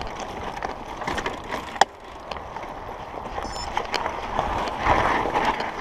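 Mountain bike riding over a loose gravel trail: the tyres crunch and scrabble on loose stones, with sharp knocks and rattles from the bike. It gets louder a little before the end.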